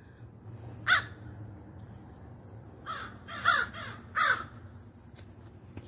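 A crow cawing: four harsh caws, one about a second in and then three more close together in the second half.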